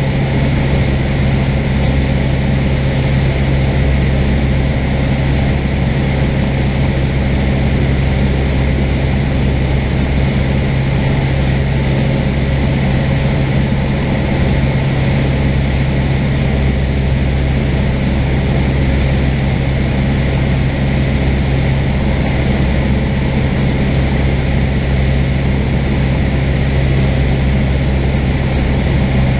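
Cessna 172's piston engine and propeller droning steadily in flight, heard inside the cabin.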